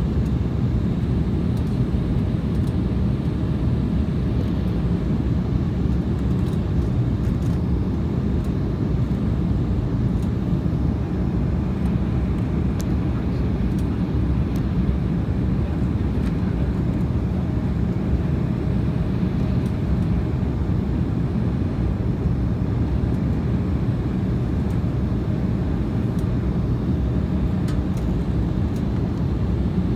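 Airliner cabin noise: the steady low rumble of the engines and airflow, heard from inside the passenger cabin.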